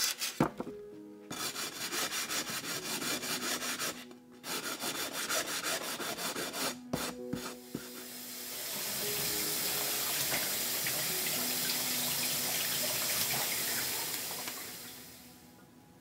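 Rhythmic scraping and rubbing on glass, then a hose spraying water over a glass panel to rinse away grit, running for about six seconds before fading out near the end. Soft background music with sustained notes plays underneath.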